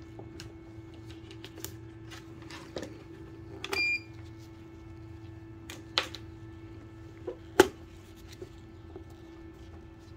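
A West Marine portable power station's inverter hums steadily while plugs and buttons on it are handled. A short electronic beep sounds just before four seconds in, and sharp plastic clicks come at intervals, the loudest about seven and a half seconds in.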